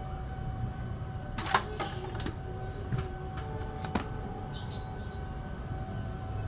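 A handful of sharp metallic clicks as a T-handle screwdriver is turned in a screw in a Stihl 440 chainsaw crankcase, the loudest about a second and a half in, over a steady faint hum.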